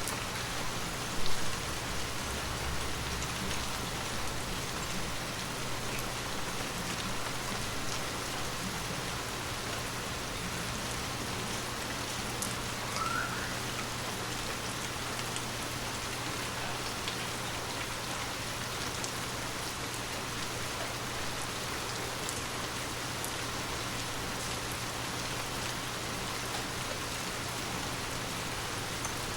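Water drops pattering on glass over an even hiss of falling water, with scattered light ticks throughout. A single louder, low thud comes about a second in.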